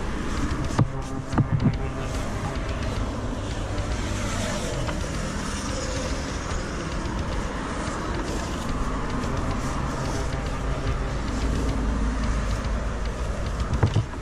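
Steady road traffic on a multi-lane avenue, with one vehicle swelling past in the middle. A few sharp knocks come between one and two seconds in.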